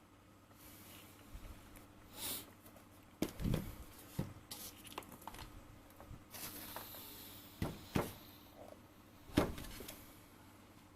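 Handling noises: a string of soft knocks and short rustles, with the loudest knock a little over nine seconds in.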